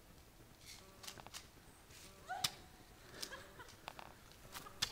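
Chickens clucking, faint, mixed with several sharp clicks; the loudest click comes about halfway through.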